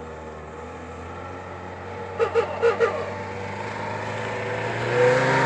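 Tofaş Serçe saloon's engine pulling under load as the car climbs a muddy track, its note steady in pitch and growing steadily louder as it approaches. A few short calls from a voice cut in about two seconds in.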